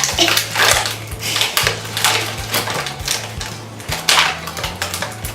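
Small plastic toy capsules and packaging clicking and rattling as they are handled and pried open, a run of quick clicks and rustles.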